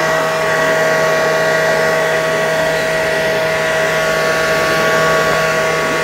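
Handheld hair dryer running steadily at close range: a constant rush of air with a steady hum and a high whine from its motor and fan.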